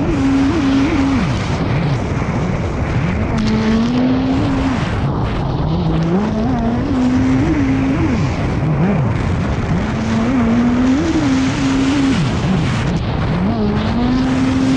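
Kawasaki SX-R 160 four-cylinder engine of a race stand-up jet ski at full racing speed, its pitch holding high, then dropping sharply and climbing back several times as the throttle comes off and on through the turns. Rushing water and wind run beneath it.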